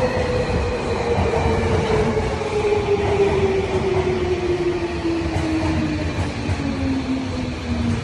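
Subway train running into an underground station and slowing, its electric motor whine falling steadily in pitch over the rumble and noise of the wheels on the rails.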